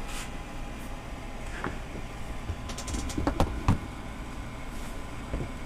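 A few light clicks and knocks of handling, clustered in the middle, over a faint steady low hum.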